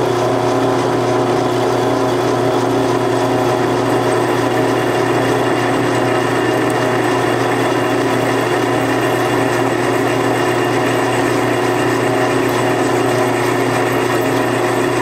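Old drill press running with a steady hum as its twist bit drills into a steel bar, curling off chips.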